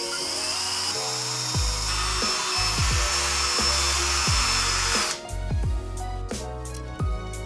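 Handheld power drill boring into an aluminium tube, with a steady high whine and hiss that cuts off about five seconds in. Background music with a steady beat plays throughout.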